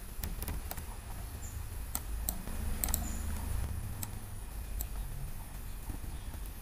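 Computer mouse clicking: about eight sharp, irregular clicks while a design is dragged and rotated in CAD software, over a low steady hum.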